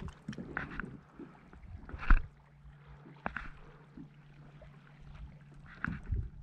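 Scattered knocks and clunks of gear being handled aboard an Old Town Sportsman PDL 106 pedal-drive fishing kayak, the loudest a single sharp knock about two seconds in.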